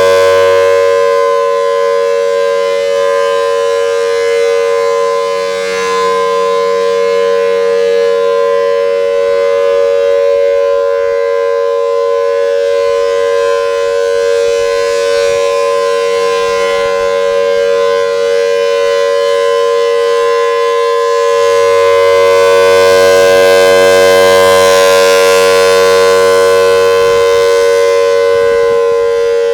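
Federal Signal Thunderbolt outdoor warning siren sounding a steady tone during a test. It holds one pitch throughout, and its loudness swells and fades, growing louder over the last third.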